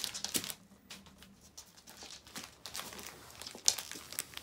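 A dog nosing into and pushing a Christmas stocking full of chews across the floor: irregular crinkling and rustling of the stocking and its contents, with a sharper crackle about three-quarters of the way through.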